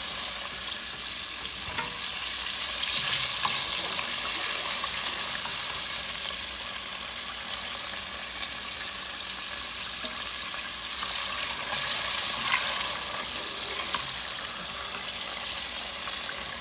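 Floured oxtails deep-frying in hot oil: a steady sizzle with scattered small crackles.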